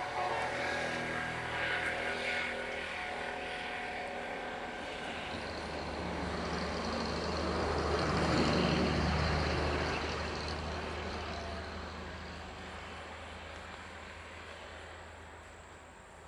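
Engine noise of something passing by: a low rumble that builds to a peak about eight seconds in, then slowly fades away.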